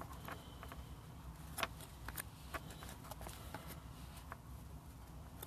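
Baseball trading cards being handled and flipped through: a scatter of light clicks and taps over a low steady hum.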